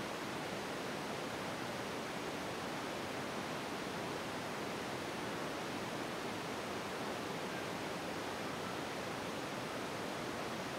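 Steady, even hiss with no taps or other distinct sounds standing out.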